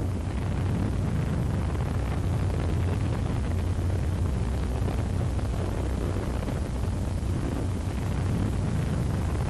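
Steady low rumble of a rocket engine firing, an even noise with no breaks.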